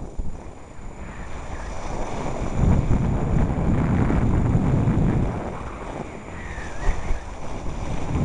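Wind buffeting the camcorder's microphone: a low rumble that swells and fades in gusts.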